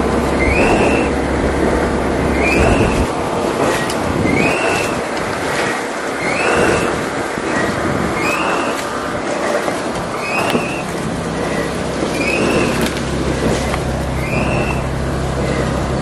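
Site concrete mixer running: a high squeak repeats about once a second over a steady rumble and a rush of noise. The low rumble fades for several seconds in the middle, then comes back.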